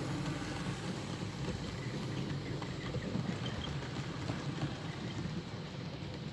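Model train rolling along the layout's track: a steady rumble of wheels and motor with scattered light clicks from the rails.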